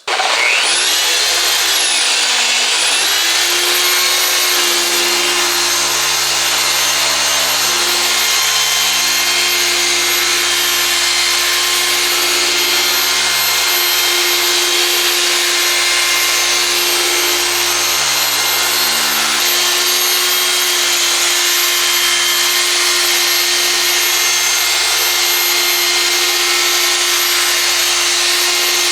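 Handheld electric polisher starting up and running steadily, buffing abrasive compound and polish into an oxidised plastic headlight lens to take off the haze. Its pitch dips and recovers about two seconds in, then holds a steady whine.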